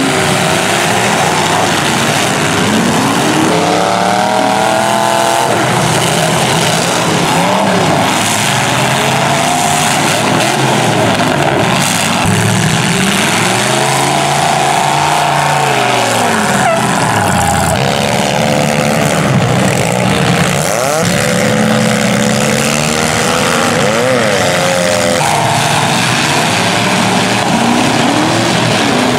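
Several demolition derby cars and pickup trucks running at once, their engines revving up and down over one another as they spin their wheels in the mud and ram each other.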